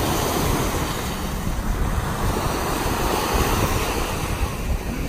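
Ocean surf washing up on the beach in a steady rush, with wind buffeting the microphone.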